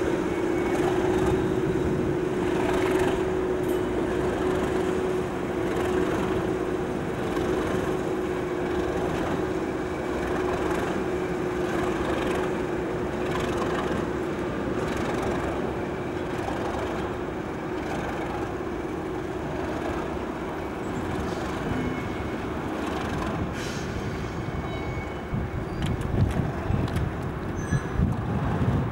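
British Rail Class 37 diesel locomotive running light engine, with a steady engine hum that fades as it draws away. A few louder low rumbles near the end.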